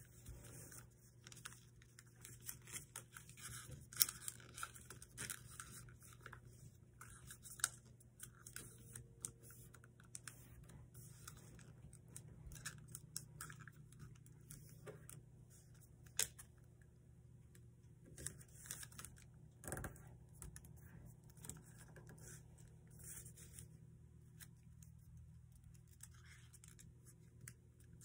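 A sheet of paper being handled and folded into an origami plane: faint, irregular crinkles, taps and creasing scrapes over a steady low hum.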